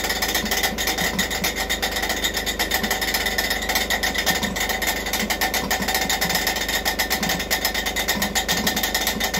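Electric motor driving a piston unit, running with a rapid, steady mechanical knocking. The crew take the knock for a semi-oval part that has come off one of its two bolts and is striking the housing, punching a hole in it.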